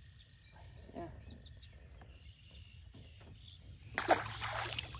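Lake water splashing about four seconds in, a sudden hiss-like burst lasting about a second, as a fish or something is dropped into the water beside the boat.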